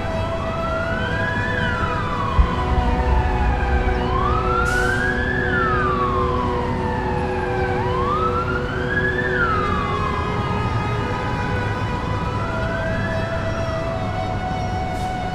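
Emergency vehicle siren in a slow wail, rising and falling four times, over a low steady rumble.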